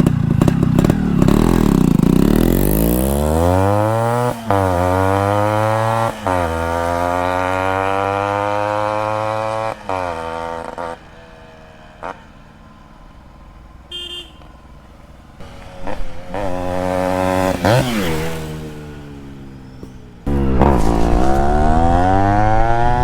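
Yamaha RX 135 two-stroke single-cylinder motorcycle accelerating hard up through its gears. The pitch climbs in each gear, with shift breaks about four, six and ten seconds in. It then drops away to a quieter, distant sound, swells briefly once more, and is loud again near the end.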